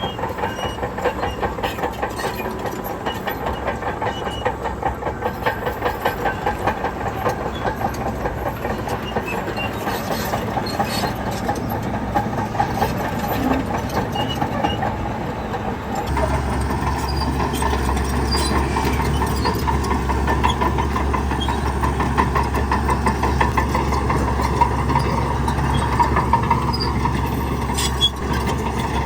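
Heavy diesel engine of construction machinery running steadily with a fast rhythmic pulse; about halfway through the sound changes abruptly to a deeper, stronger low drone.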